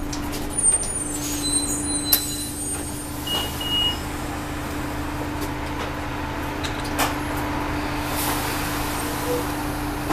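Interior of a city transit bus: a steady engine drone with a constant whine, plus a few sharp rattles and knocks from the bus body.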